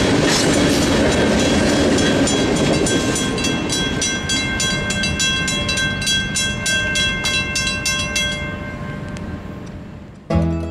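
A railroad crossing bell rings in rapid, even strokes while the rumble and wheel clatter of a freight train's last cars fade away. The bell stops near the end, and plucked-string music cuts in just before the close.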